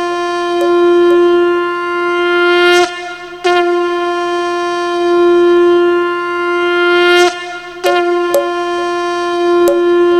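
Conch shell (shankha) blown in three long blasts, each a steady single held note of about three to four seconds, with short breaks between them. It is sounded as a ceremonial welcome call.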